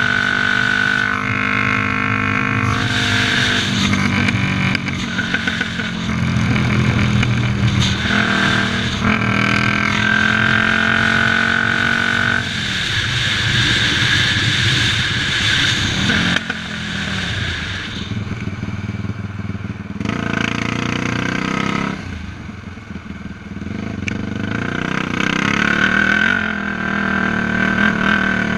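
Sport quad's single-cylinder four-stroke engine under way at speed, revving up through the gears with pitch climbing and dropping back at each shift. It eases off a little past the middle, then pulls hard again a few seconds later.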